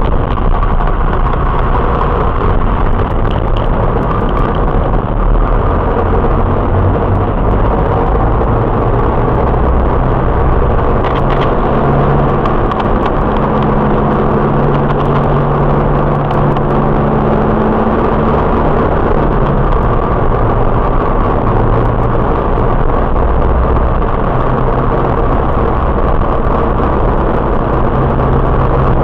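Car driving at a steady speed, heard from inside the cabin through a dashcam's built-in microphone: continuous engine and road noise.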